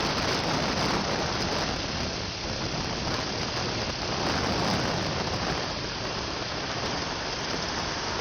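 Steady rushing noise of rain and wind while riding a motorcycle through the rain.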